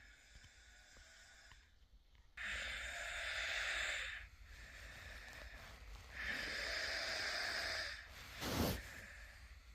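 A sleeping person snoring: two long, hissing breaths about four seconds apart, after a fainter one at the start, then a short, louder burst near the end.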